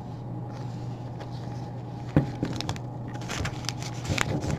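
Trading cards being handled and slid about by hand: a sharp tap about two seconds in, then a run of quick clicks and rustling near the end, over a steady low hum.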